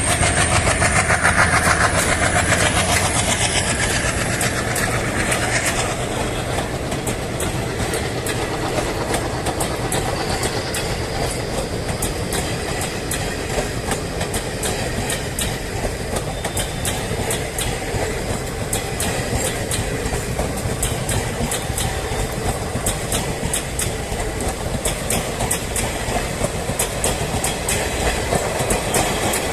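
Passenger train coaches rolling past, their wheels clicking steadily over the rail joints; louder for the first several seconds, then a steady run of clicks.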